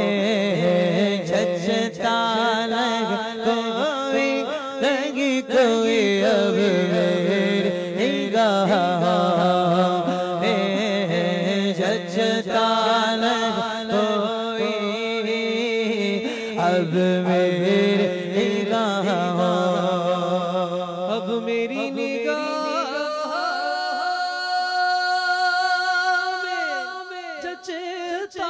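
Naat singing: a voice draws out a long, wavering melodic line over a steady low drone, then settles into one long held note about three-quarters of the way through.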